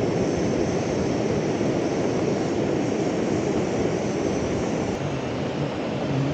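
Steady rushing noise of a portable gas camping stove burning under a pot of rice at a rolling boil, mixed with the flow of the river. About five seconds in the high hiss drops away and the river's steady rush remains.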